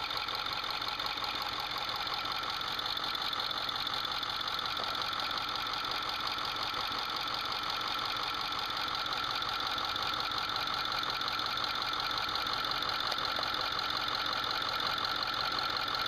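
Ford 6.4-liter Power Stroke twin-turbo V8 diesel running steadily at operating temperature with its valve covers off, giving a fast, even chirping tick from the rear cylinders. It is the bird-chirp noise of a severely scored rear camshaft lobe, where the roller lifter rolls over the damaged lobe.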